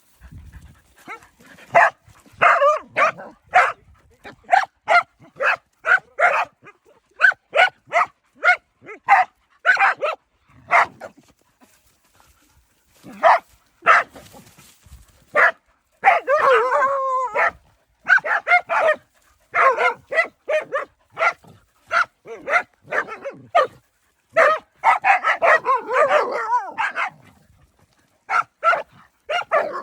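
Several dogs barking at a snake, a steady run of short sharp barks about two a second, with stretches of overlapping barking from more than one dog about sixteen seconds in and again near twenty-five seconds.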